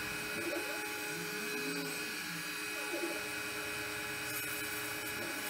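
DIY 5-axis CNC router carving XPS foam: a high-speed spindle runs steadily with a hiss as the long bit cuts, while the axis motors sweep up and down in pitch every second or so as the head moves.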